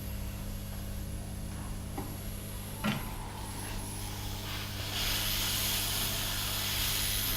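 Hot-air rework gun blowing: a steady hiss that starts about four and a half seconds in, over a constant low electrical hum. A single short click about three seconds in.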